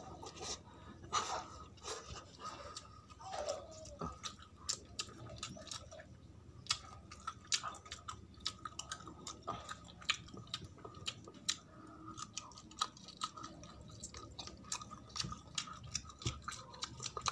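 A person chewing fried fish and rice close to the microphone, with many small, quick mouth clicks and smacks.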